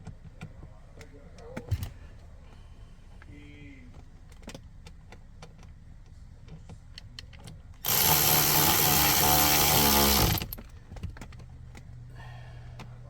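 Power screwdriver running for about two and a half seconds, a little past the middle, as it drives a Torx screw back into the dash trim panel. Its pitch falls as it spins down. Before it come light clicks and taps of the panel being handled.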